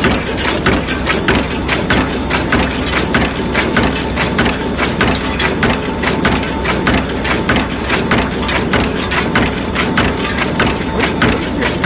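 Cold forging machine making cylindrical needle bearing rollers, running steadily: its cutter and forming strokes make a rapid, even clatter, several strokes a second, over a continuous low mechanical hum.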